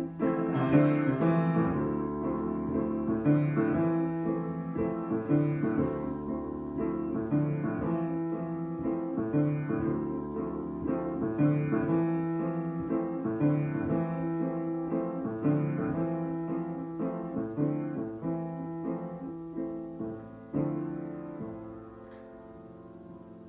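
Solo piano improvising: chords over a low bass figure that repeats at a steady pace. A last chord is struck about twenty seconds in and left to ring and fade.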